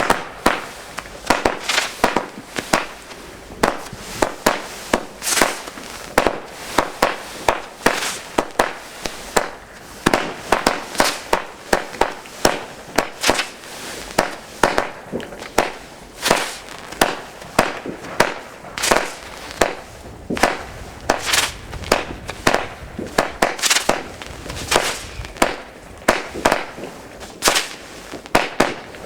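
Nico 'Stars of Ocean' consumer firework battery (cake) firing shot after shot: a long, unbroken string of sharp bangs, about two a second.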